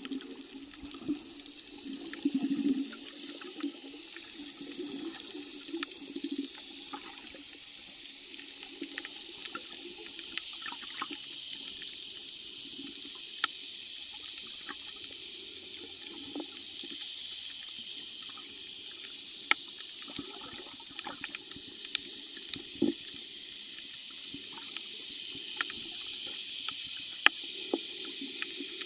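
Underwater sound picked up by a submerged camera over a coral reef: a steady hiss with scattered sharp clicks, and low water burbling that is strongest in the first few seconds and again near the end.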